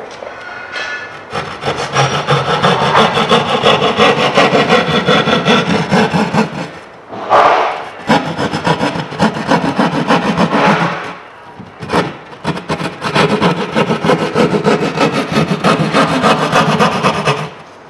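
Drywall hand saw (jab saw) sawing through a sheet of sheetrock with rapid back-and-forth strokes, cutting out an outlet-box opening. The sawing comes in three runs, with short breaks about seven seconds in and about twelve seconds in.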